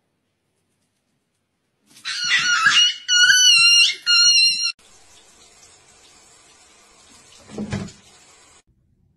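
A puppy squealing: three loud, high-pitched squeals in a row, then a single dull thump.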